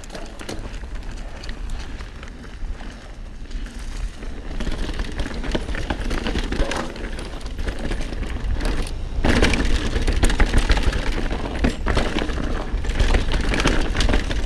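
Mountain bike riding fast over a rough, loose trail: knobby tyres crunching and skidding on dirt and rock, and the bike rattling with many small knocks. Wind rumbles on the mic. It grows louder about halfway through as the bike picks up speed over rougher ground.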